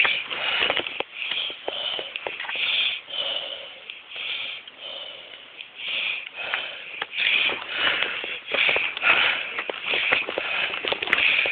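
Footsteps on stone steps and gritty ground with puffing, hissy breathing of someone climbing.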